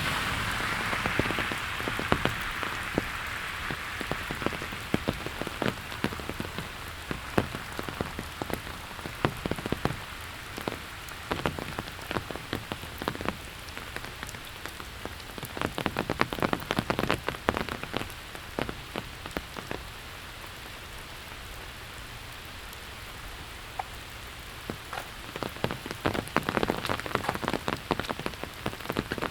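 Steady rain falling, with many close, sharp raindrop taps over an even hiss. The drops come more densely about halfway through and again near the end. A louder hiss fades away over the first few seconds.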